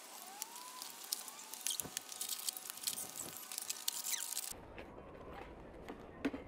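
Steel trowels scraping and patting wet cement mortar onto the wire-mesh dome of a brick oven, a run of many small scrapes and taps.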